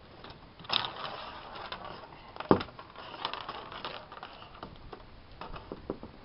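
Steel tape measure being pulled out across a plywood sheet: the blade rattles and clicks as it runs out, with a sharp knock about 2.5 s in and a few single clicks near the end.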